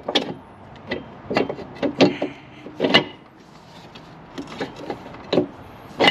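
Irregular knocks and clicks of hand tools being handled against the car's parts during the mount removal, a sharp tap every half second to a second.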